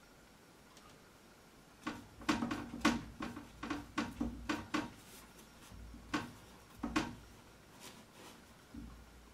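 Paintbrush dabbing and tapping against a stretched canvas on an easel: a run of about a dozen irregular knocks that starts about two seconds in and stops after about five seconds, then a softer thump near the end.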